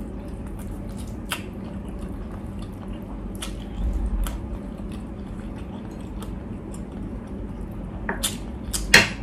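Close-miked chewing of a mouthful of food, with wet mouth smacks and clicks scattered through and a sharper cluster of smacks near the end.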